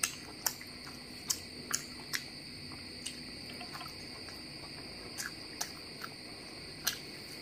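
Close-up eating sounds of biryani eaten by hand: scattered sharp clicks from fingers picking rice grains off a plate and lip smacks while chewing. A steady, high-pitched, insect-like drone runs underneath.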